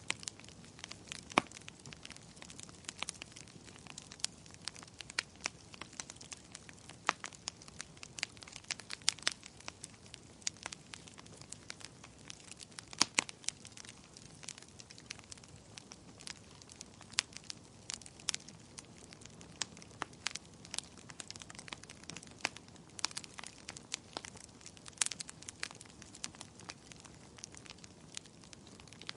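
Wood fire crackling in a fireplace: irregular sharp pops and snaps over a faint steady hiss, with a few louder snaps scattered among the many small ones.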